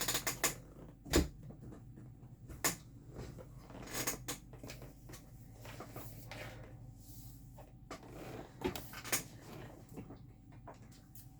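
Scattered handling noises: irregular taps, clicks and light knocks as diamond painting kits and their packaging are picked up and moved, with the sharpest knock about a second in.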